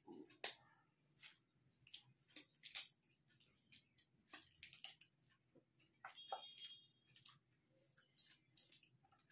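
People chewing and smacking their lips as they eat rice and fish curry with their hands: a string of soft, irregular wet clicks and smacks.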